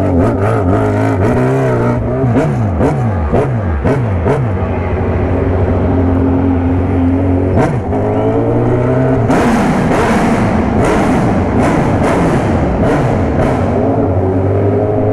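Sport motorcycle engine revved repeatedly at low road speed, its pitch rising and falling in quick blips. From about nine seconds in it sounds rougher and fuller as the bike rides through a concrete tunnel.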